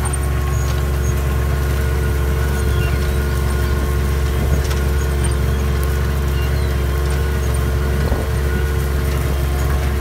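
Tractor engine running steadily under heavy load while ploughing, heard from inside the cab as a constant low drone with a steady hum over it.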